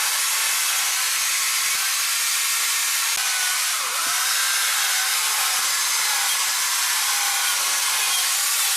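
A power carving tool running steadily and cutting into wood, its whine wavering slightly in pitch as it works.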